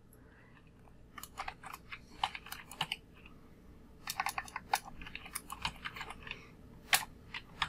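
Computer keyboard keystrokes as a word is typed: quick runs of clicks starting about a second in, a pause of about a second, a second run, then a few single key presses near the end.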